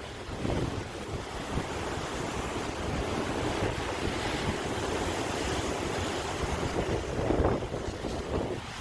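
Sea waves surging and washing in a continuous swell, with a louder surge about seven seconds in.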